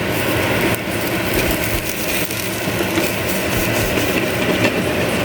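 Food sizzling on a hot pan on an induction cooktop, being toasted on both sides: a steady hiss with fine crackling.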